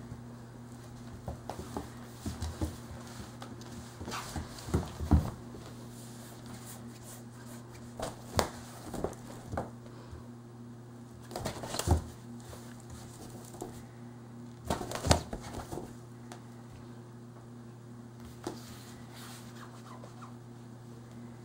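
Cats pawing, scratching and pushing at a pop-up nylon fabric tunnel, with scattered rustles, scrapes and knocks and the patter of paws on a wooden floor; a few louder knocks stand out. A steady low hum runs underneath.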